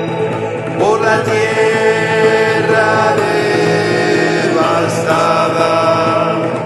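Music: a chant-like vocal line held over a steady low drone, sliding up into a new note about a second in and again near five seconds.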